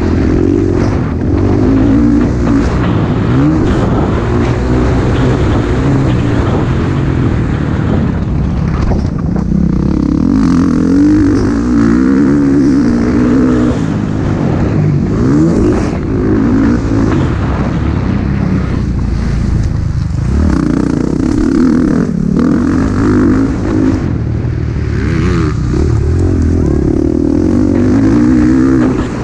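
MX1-class motocross bike engine, ridden hard on the race track, revving up repeatedly as it accelerates and shifts gears, then dropping off, with a constant loud rush underneath.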